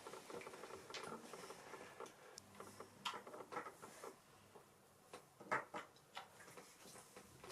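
Faint, scattered clicks and light taps of small plastic toy pieces being handled: Hatchimals eggshell halves and a figure.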